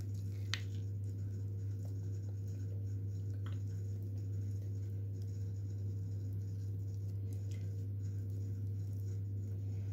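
A steady low hum, with a few faint scrapes and clicks of a wooden spoon against a glass bowl as thick cake batter is poured into a silicone mould.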